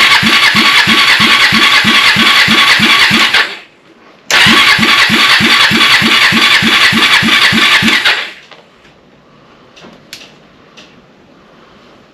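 Kawasaki Lakota ATV's single-cylinder four-stroke engine cranking on its starter in two bursts of about four and four seconds, with a steady chug of about four compression strokes a second. It never catches; the owner suspects it needs carburetor work.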